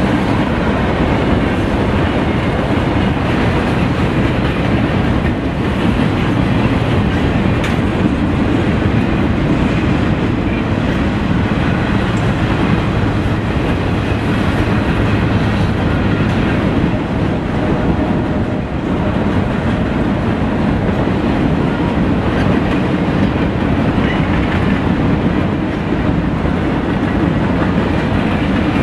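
Freight train cars rolling past: a steady, loud noise of steel wheels running on the rails.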